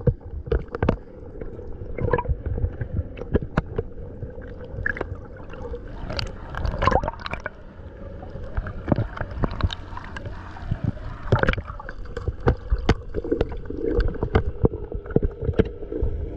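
Muffled water sloshing and gurgling picked up by a camera held underwater, with many scattered sharp clicks and knocks and a faint steady hum.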